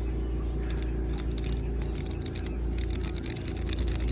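Plastic links of a Wacky Track snap-and-click fidget toy clicking as they are twisted into new positions, in quick runs of sharp clicks about a second in and again near the end.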